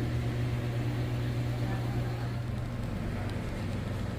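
Steady low drone of a car engine running, heard inside the car's cabin.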